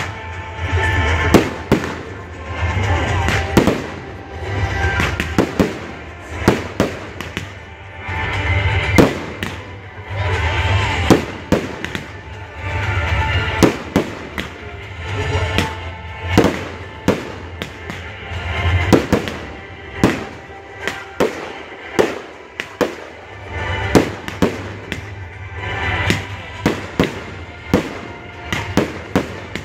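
Fireworks display: a dense, continuous series of sharp bangs and shell bursts, several a second at times.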